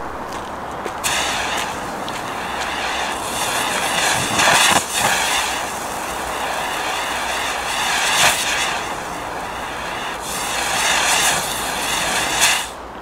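A 1984 three-driver rotating firework wheel burning: its drivers give a loud, continuous hiss as the wheel spins. The hiss surges louder about four and a half seconds in, about eight seconds in and near the end, then falls away suddenly.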